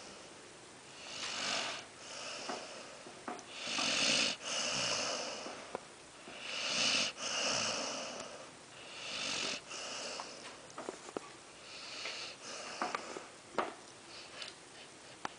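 Snoring in sleep: about five long, hissy snoring breaths, two to three seconds apart, followed by a few faint clicks near the end.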